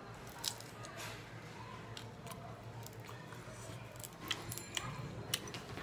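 Quiet chewing and mouth sounds of someone eating a rice-flour pancake (chitoi pitha) with curry. A few soft clicks and smacks are scattered through it, the most at around four to five seconds in, over a faint steady low hum.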